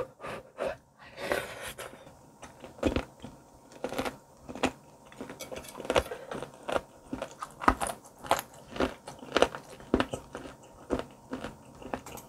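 A person crunching through a thumb-sized piece of pork rib cartilage from spicy braised ribs, picked up close by a clip-on microphone. Repeated sharp crunches come roughly one to two a second as it is chewed.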